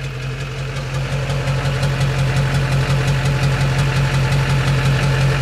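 2001 Duramax 6.6 L V8 turbo-diesel running with its exhaust open at the downpipe, a steady drone with a regular, rapid knock of about four or five beats a second, getting a little louder about a second in. This is the knock the owner is chasing, which he suspects goes away on deceleration when the engine is not fueling.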